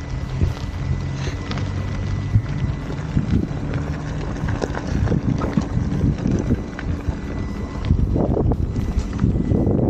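Electric unicycle ridden over a gravel dirt track: tyre rumble and gravel crunch, with wind buffeting the microphone. It grows louder near the end.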